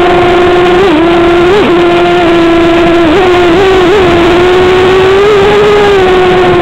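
Brushless electric motors and propellers of an FPV drone, picked up by its onboard camera, giving a loud steady whine. The pitch dips and jumps briefly as the throttle changes, about a second in, again near the middle, and several times more soon after.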